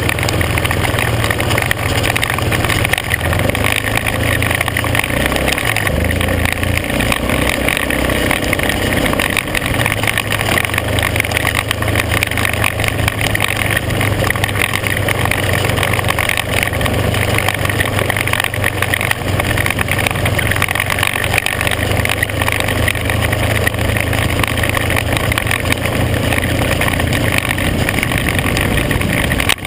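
Small off-road vehicle engine running steadily at cruising speed, with a constant low drone and the rumble of tyres rolling over a gravel road.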